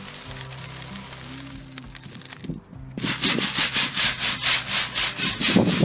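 A steady hiss, then from about three seconds in rhythmic scraping or rubbing strokes, about three or four a second, over faint background music.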